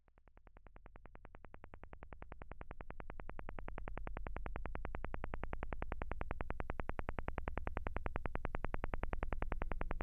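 The 'Russian Woodpecker': the Soviet Duga over-the-horizon radar's signal as heard on shortwave radio, a fast, even tapping of about ten pulses a second. It fades in and grows louder over the first few seconds, over a low steady drone.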